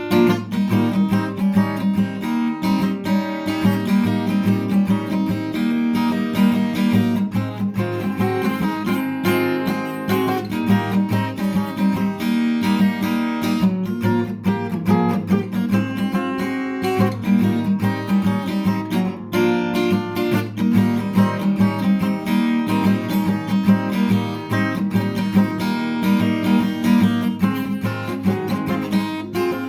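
Background music: acoustic guitar strummed and picked at a steady rhythm.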